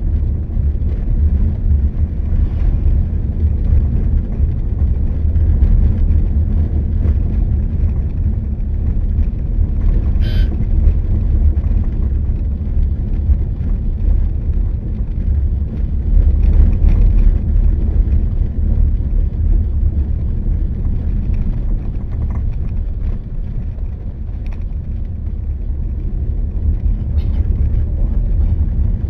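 Steady low rumble of a vehicle travelling along a road, swelling and easing a little, with one brief sharp sound about ten seconds in.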